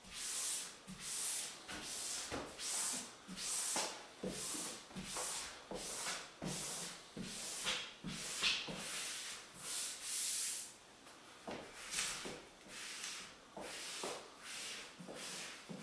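Hand squeegee rubbing over a wet peel-and-stick backdrop, in short repeated strokes about two a second, pressing it down and pushing the soapy water out from under it. About ten seconds in the strokes become fewer and softer.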